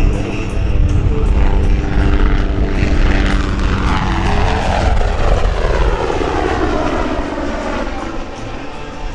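UH-60 Black Hawk helicopter making a high-speed pass: heavy rotor noise and the whine of its twin turboshaft engines. The whine falls in pitch as it goes by, from about three and a half seconds in, then fades as it pulls away.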